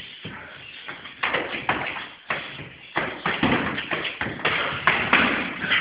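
Muay Thai sparring: a quick run of sharp slaps and thuds as gloved punches and kicks land, coming thick and fast from about a second in.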